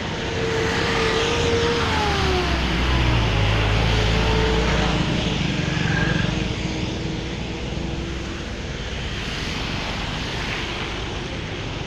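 Road traffic noise: vehicle engines running with a low rumble that grows louder in the middle, and a tone that falls in pitch about two seconds in.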